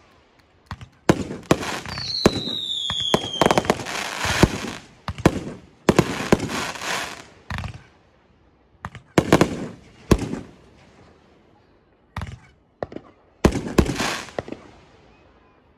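Fireworks going off: a run of sharp bangs at uneven intervals, each trailing off, with a whistle falling in pitch about two seconds in.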